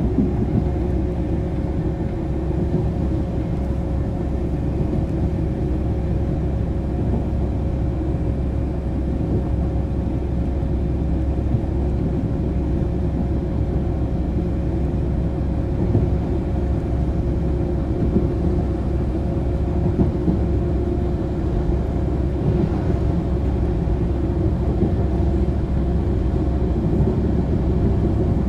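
Iarnród Éireann 201 Class diesel locomotive no. 234, with its EMD 12-710 two-stroke V12 engine, running steadily: a continuous low rumble with a steady hum, heard from on board the train.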